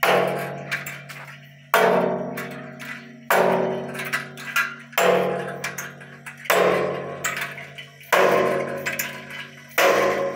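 Homemade striking machine: a car windshield-wiper motor works a steel arm that bangs on the lid of a steel drum about every 1.6 seconds, seven loud strikes in all. Each strike rings with a low hum and dies away, with lighter knocks in between.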